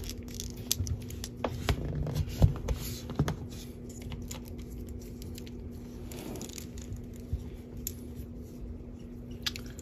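Fingers handling a plastic SH Figuarts action figure, moving its parts: scattered small clicks and rubbing, busiest in the first few seconds, over a steady low hum.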